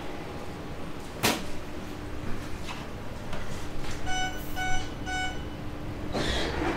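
Helsinki metro train's door-closing warning: three short, evenly spaced beeps about four seconds in, over a steady hum from the standing train. A single sharp click comes about a second in, and a louder rush of noise starts near the end.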